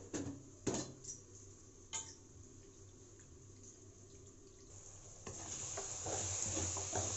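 A few light knocks on a steel bowl, then from about five seconds in a tomato-and-onion masala sizzling in oil in a pan as it is stirred with a spatula.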